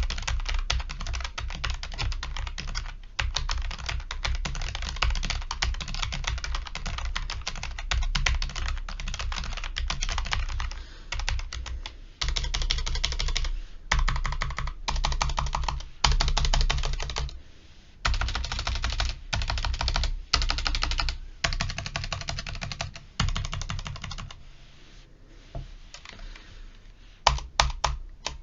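Typing on a Logitech G915 TKL low-profile mechanical keyboard with linear switches: a rapid, continuous clatter of keystrokes. About halfway through it breaks into bursts with short pauses, and it grows quieter near the end before a few last strokes.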